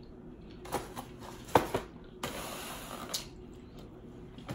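Foam clamshell takeout boxes handled and stacked on a table: a few light knocks, then a stretch of rubbing a little past the middle.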